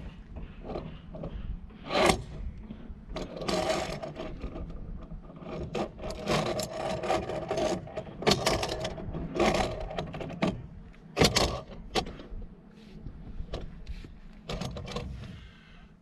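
Irregular scraping, clicking and knocking of hands, shoes and via ferrata clipping gear on steel rungs and a steel cable during the climb, with a few sharper knocks.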